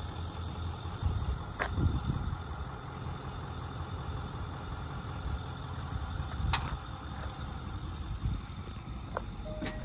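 Vehicle engine idling steadily, the truck supplying a jump start to a car with a flat battery. A few sharp clicks sound over it.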